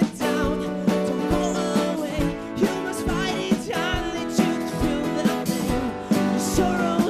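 Live band music with guitar over a steady drum beat.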